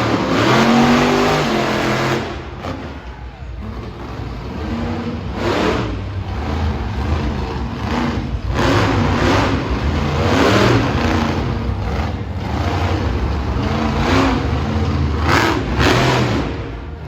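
Monster truck engine revving hard through a timed run, the throttle opening and closing in repeated loud surges every one to three seconds.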